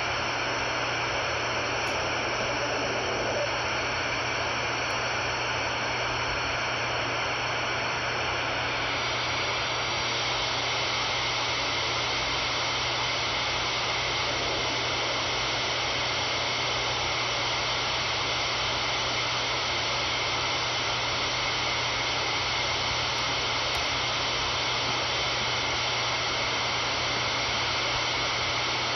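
Radio static from a web SDR receiver tuned around 26.6 MHz: a steady hiss with a few steady high whistles that stop about nine seconds in.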